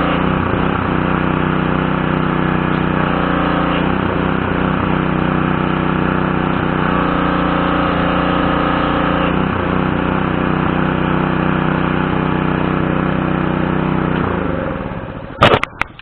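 Craftsman pressure washer's single-cylinder Briggs & Stratton 550E series 140cc engine running steadily, its pitch shifting slightly a few times. Near the end it winds down and stops, followed by a sharp knock.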